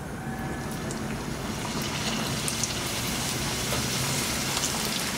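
Hot oil sizzling and crackling in a wok as raw pocket samosas are lowered in to deep-fry. The sizzle grows louder over the first couple of seconds as more pieces go in, then holds steady.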